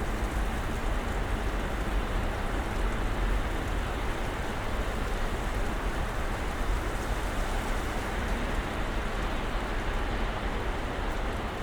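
Snowstorm ambience: a steady, even hiss with a deep rumble underneath, and no distinct events.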